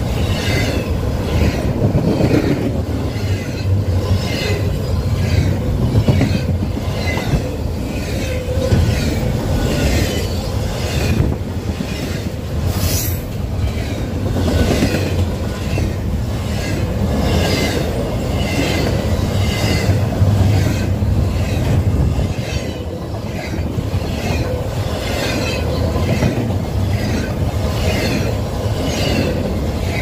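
CSX freight train's cars rolling past, wheels clicking over rail joints in a steady repeating rhythm over a low rumble, with some wheel squeal.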